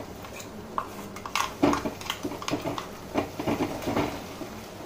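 A metal spoon scrapes and knocks irregularly against a kadai and bowl as ground pirandai paste is added to the hot tempering. Several of the clinks ring briefly.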